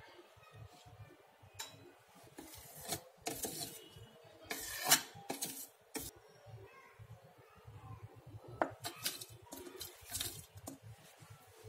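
Steel spoon scraping and clinking against the inside of a stainless-steel mixer-grinder jar as ground oats and peanuts are stirred, in irregular clinks, the loudest about five seconds in. Near the end a steel bowl clinks against the jar as chopped jaggery is tipped in.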